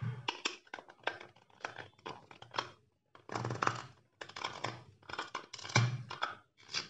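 Clear plastic coin capsule being fitted around a 100 g silver coin and pressed shut: a run of short plastic clicks, taps and rubbing from handling.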